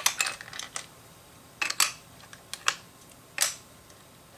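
LEGO plastic parts clicking and clattering as dark grey 4x4 plates are set down on a tabletop: several short, sharp clicks, a cluster near the start and then single ones spaced unevenly.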